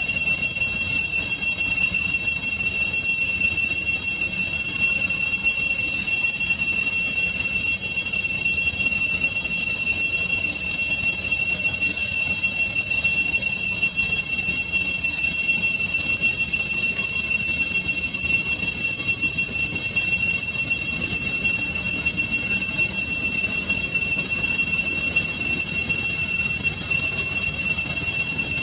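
Cicada chorus: a steady, loud, shrill high-pitched whine that holds one pitch without a break.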